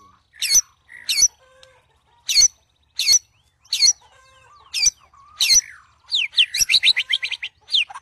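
White-rumped shama (murai batu) calling: loud, sharp, short notes repeated about every half second to second. Near the end it breaks into a fast run of quick notes, each sliding down in pitch.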